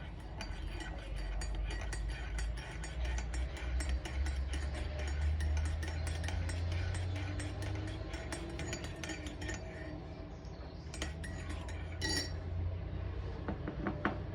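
Dishes and cutlery clinking as they are handled, many small clicks over a low steady hum, with one sharper ringing clink about twelve seconds in.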